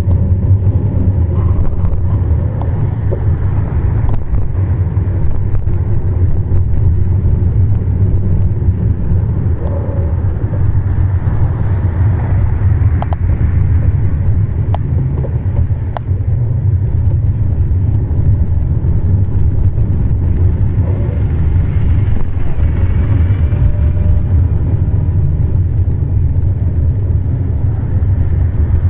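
Steady low rumble of a bicycle ride: wind buffeting the microphone together with tyre and road noise, with a few light clicks near the middle.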